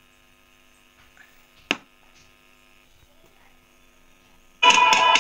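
Faint steady electrical hum with one sharp click, then near the end music starts suddenly and plays loudly through a homemade PAM8403 Bluetooth amplifier speaker from a phone.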